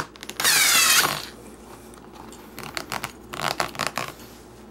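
A loud hiss of about half a second, then leather straps on a saddle rustling and creaking in a run of small clicks as they are pushed into place by hand.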